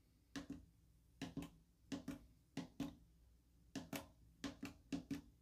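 HP 35s calculator keys being pressed one at a time to enter a number: about eight soft, short key clicks at irregular intervals, several heard as a quick double click.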